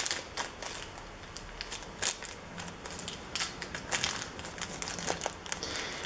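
Small plastic packet of PC screws handled and picked open by fingers: scattered light crinkles and small clicks.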